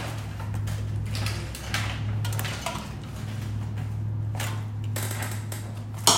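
Scattered rustling and scraping handling noises over a low steady hum, with one sharp click near the end.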